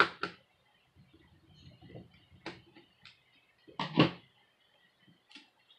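Sharp clicks and knocks of hands and a screwdriver working on a laptop's open plastic chassis and battery, a few separate hits with the loudest pair about four seconds in.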